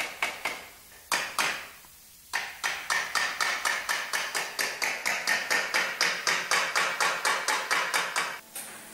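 Hand hammer striking thin sheet steel over a stake, a panel beater shaping a car body part with a bumping and planishing hammer. Quick, even blows of about five a second, with a short break about a second in, stopping just before the end.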